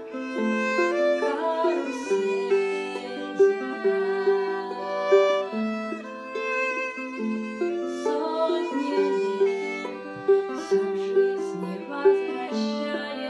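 Violin playing a melody over ukulele accompaniment.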